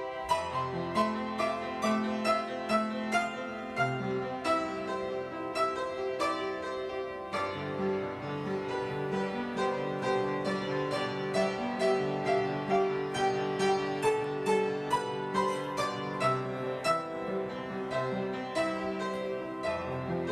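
Background instrumental music: a quick run of plucked or struck keyboard notes with a steady pulse, like a harpsichord or piano.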